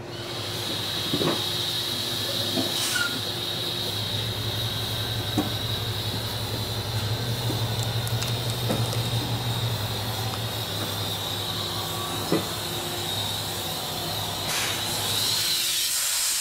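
Loaded semi truck's diesel engine running as the truck creeps forward. It works harder for several seconds in the middle as the tyre rolls up onto a wooden board, over a steady high whine, with a few sharp clicks scattered through.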